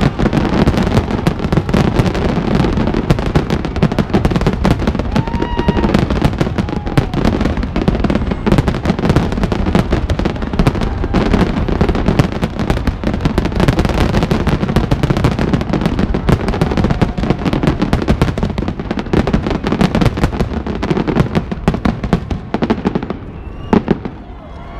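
Aerial fireworks in a dense barrage: rapid, overlapping bangs and crackling with no let-up, thinning out and dying away in the last couple of seconds.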